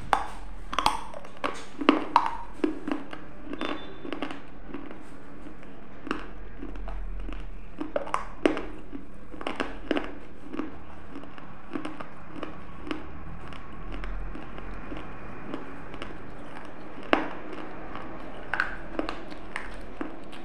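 Close-up crunching and chewing of pieces of a baked clay diya, heard on a clip-on microphone. The sharp, irregular crunches come thickest in the first few seconds, then grow sparser, with one loud crunch near the end.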